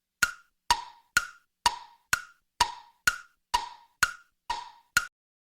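Tick-tock sound effect: eleven crisp, wooden-sounding clicks at a steady two per second, alternating between a higher and a lower pitch like a clock's tick and tock.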